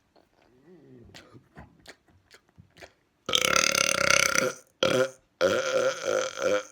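A person belching deliberately: a few quiet seconds, then a long loud burp, a short one, and another long one.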